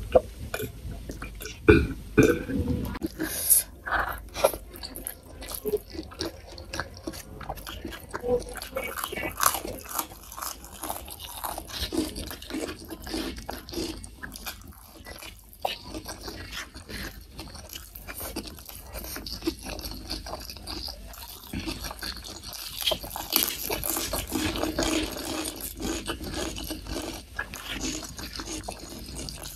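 Close-miked eating: wet chewing with many small mouth clicks as soft food (fried egg, rice and boneless chicken feet braised in sweet soy sauce) is eaten by hand, after a few gulps of water near the start.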